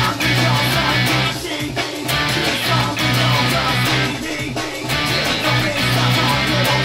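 Electric guitar strummed hard in time with a loud full rock band recording, with a heavy bass line and drums.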